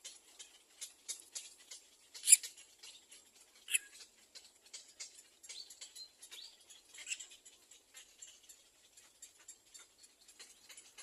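Nestling birds making quick, faint high squeaks and clicks, several a second, with two sharper, louder calls about two and a half and nearly four seconds in.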